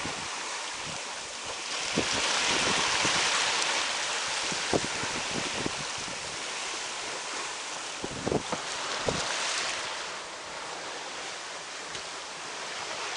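Sea water rushing past the hull of a Sigma 362 sailing yacht under way, with wind buffeting the microphone. A louder surge of water comes a couple of seconds in, and a few short low thumps fall here and there.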